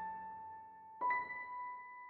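Background music: slow, sparse piano, one note ringing out and another struck about a second in.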